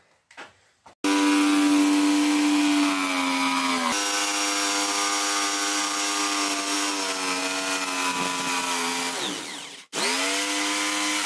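Bosch jigsaw cutting a window opening along a curved line in a wooden wall panel: a steady motor whine with the blade rasping through the wood. It starts suddenly about a second in, winds down near the end, then spins up again with a rising whine.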